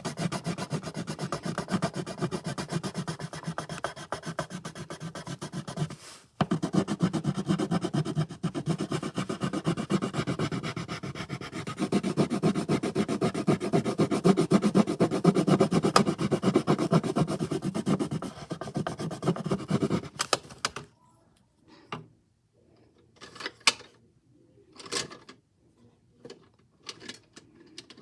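Rapid back-and-forth scribbling of a colouring tool on paper as a ball is coloured in, with a short break about six seconds in. It stops about twenty seconds in and gives way to a few short, separate strokes.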